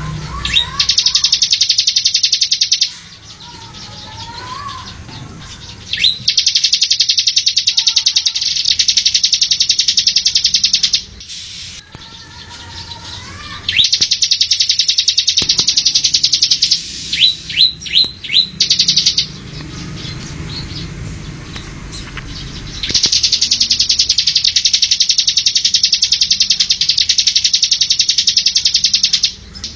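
Ciblek (a prinia) singing in long, very fast trills of rapid high notes lasting several seconds each, with a short run of about six separate sharp rising notes between the second-to-last and last trills.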